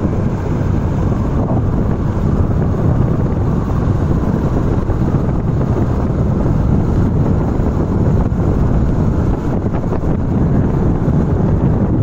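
Steady, loud wind buffeting the microphone while travelling along a road, with the low rumble of the moving vehicle underneath.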